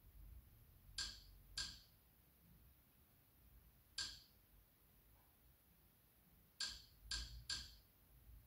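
Short menu navigation clicks, six in all: two about a second in, one near the middle, and three in quick succession near the end, each the same bright tick as the on-screen file menu is scrolled.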